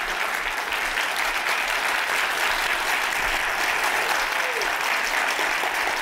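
Audience applauding steadily, a hall full of people clapping.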